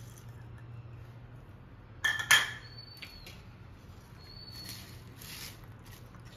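A bowl knocking twice against the rim of a nonstick pan about two seconds in, each knock ringing briefly, with a fainter ring a couple of seconds later. Between these comes the soft rustle of crisp fried potato sticks (farali chevdo) being tipped out onto the khichdi.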